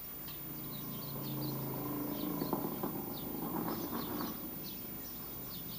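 Small birds chirping over and over, with short falling notes, over a low droning hum that swells in the middle with a few knocks and fades out about three-quarters of the way through.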